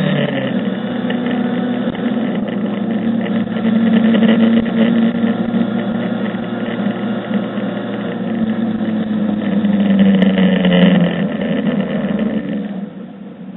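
Mercedes 190E rally car's engine driven hard on a stage, its pitch climbing and falling with the revs and gear changes. About a second before the end it drops to a much quieter note as the driver lifts off.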